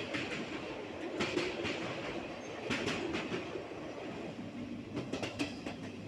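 Train running along the track, heard from on board: a steady rumble with clusters of clickety-clack wheel clicks over the rail joints every second or two.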